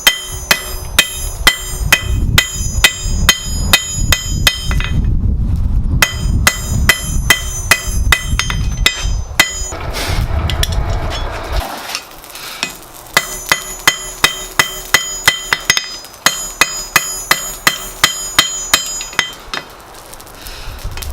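Blacksmith's hammer striking steel bar on an anvil in a steady rhythm, about three blows a second, each blow leaving a high ringing tone. The hammering pauses briefly about five seconds in and again for a few seconds in the middle. A low rumble runs underneath during the first half.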